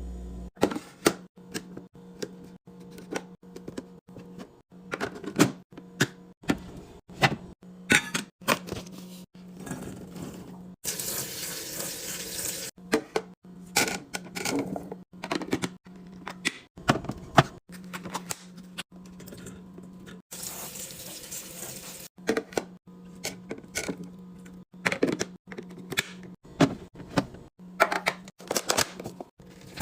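Fridge restocking: containers, lids and packaged food clicking, tapping and knocking as they are handled and set on shelves, in quick irregular strokes. There are two stretches of hissing noise, each about a second and a half long, about eleven and twenty seconds in.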